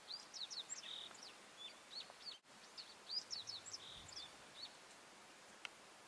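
Faint birdsong: a small songbird singing quick phrases of short high chirps and slurred notes, the same kind of phrase coming twice, over a steady faint background hiss.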